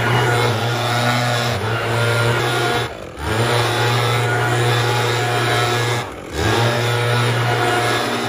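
Gas-powered backpack leaf blower running at full throttle, blowing clippings off a concrete sidewalk; the engine note is steady except for two short throttle let-offs, about three and six seconds in, where it dips and comes straight back up.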